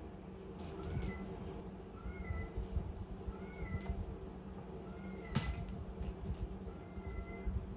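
Calico kitten giving short, high chirping mews, about five of them a second or so apart. Between them come a few sharp clicks and taps as it knocks about in a plastic basket; the loudest click is about two-thirds of the way through.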